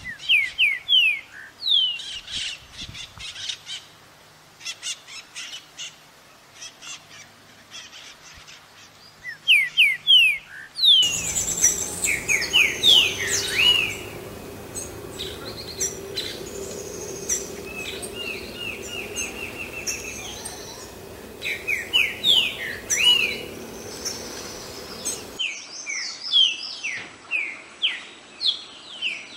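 Green-winged saltator singing: repeated short phrases of clear whistled notes, many sliding down in pitch, with pauses between phrases.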